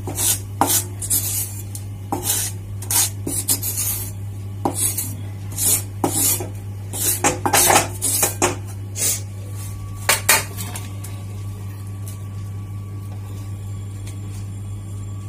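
Wooden spatula scraping and knocking against a hot kadhai and a steel plate as roasted dry coconut is scraped out of the pan, in many quick strokes that stop about two-thirds of the way through. A steady low hum runs underneath.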